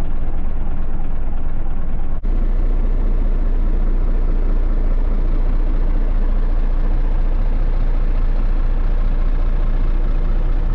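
Heavy truck's diesel engine idling steadily, heard from inside the cab, with a brief break about two seconds in.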